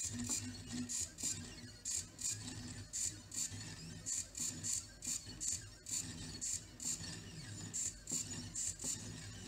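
AxiDraw pen plotter drawing back-and-forth hatching: its stepper motors whir in short strokes, about two a second, as the pen carriage darts over the paper.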